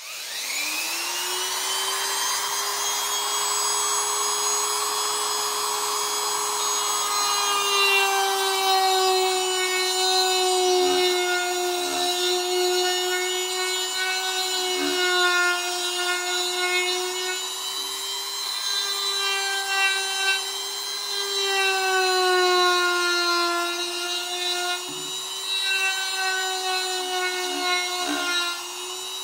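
Handheld rotary tool with a Kutzall original coarse-grit carbide burr, spinning up with a rising whine and then running steadily while it grinds into cherry wood. Its pitch dips repeatedly as the burr bites under load and recovers when eased off.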